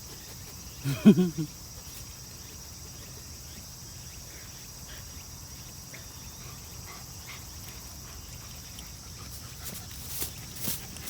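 A Shiba Inu gives a brief, excited, broken vocal sound about a second in. A few faint steps or scuffs follow near the end.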